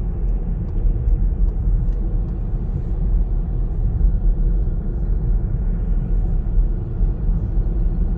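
Steady low rumble of a car driving at expressway speed, heard from inside the cabin: tyre and engine noise with no changes or separate events.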